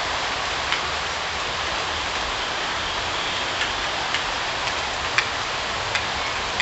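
Steady rain falling, with five sharp single drip ticks standing out, the loudest about five seconds in.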